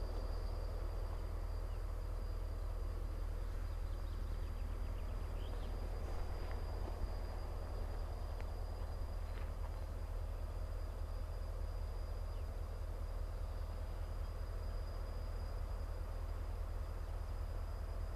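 Steady low rumble of a slow-moving freight train, heard from on board, with a faint steady high-pitched whine.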